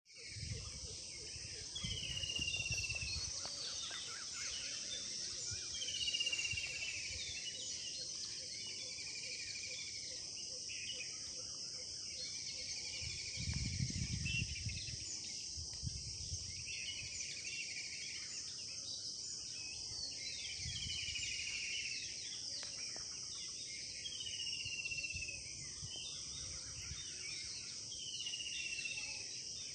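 Steady high-pitched chirring of insects, with a bird repeating a short falling whistled call every few seconds. A few low dull bumps stand out, the strongest about halfway through.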